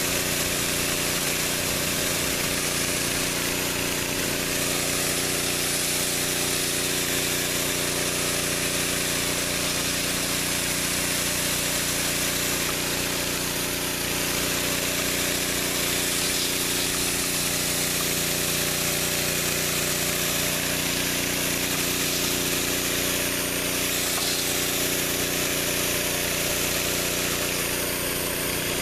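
Four-nozzle pressure-wash water broom spraying high-pressure water onto concrete, a constant hiss of spray over the steady hum of the pressure washer's engine and pump.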